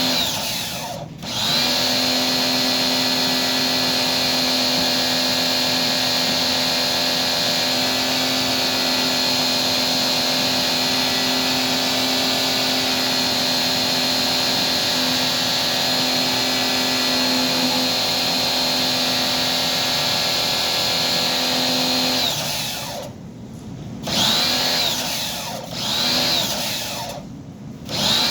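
Small electric motor running with a steady whine. It cuts out briefly about a second in and twice near the end, spinning back up each time.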